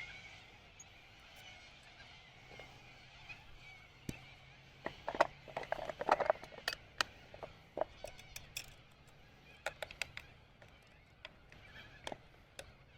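Faint scattered clicks and knocks of hands handling tools and the chainsaw, busiest a few seconds in, with faint birdsong fading in the first second.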